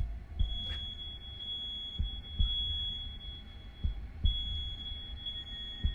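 Smoke alarm sounding a steady, shrill high tone that breaks off briefly twice, set off by the stove left burning. Under it, deep thumps come in pairs about every two seconds, like a slow heartbeat.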